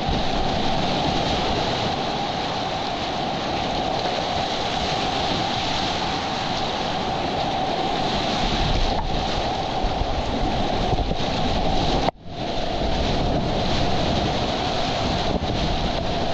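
Steady rushing of whitewater rapids mixed with wind buffeting the camera's microphone. The noise drops out for a moment about twelve seconds in.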